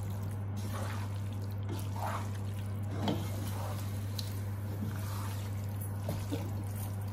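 Wooden spatula stirring fusilli pasta through thick tomato sauce in a metal pot: soft, wet squelching and occasional light scrapes against the pan, over a steady low hum.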